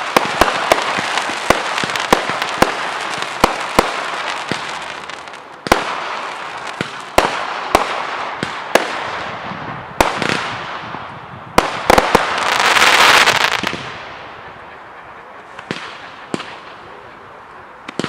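Professional fireworks display: rapid sharp bangs over a dense crackling hiss, thinning out after about five seconds into scattered single reports. A swelling hiss lasts about a second some two-thirds of the way through, then the firing dies down to a few last bangs.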